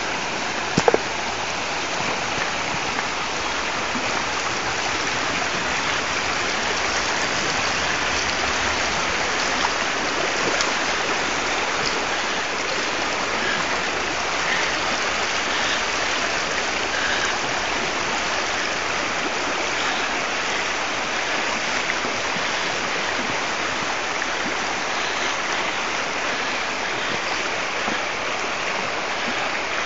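Steady rush of shallow river water running over rocky riffles, with a brief knock about a second in.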